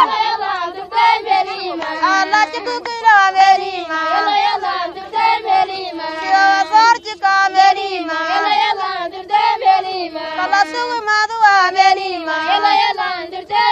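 A high-pitched voice singing a melody in wavering, ornamented phrases that run on through the whole stretch.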